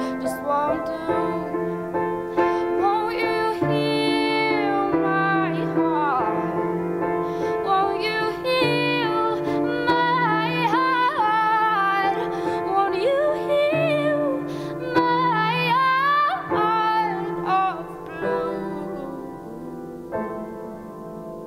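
A woman singing a slow song with her own piano accompaniment. Near the end the voice drops out and the piano carries on, getting quieter.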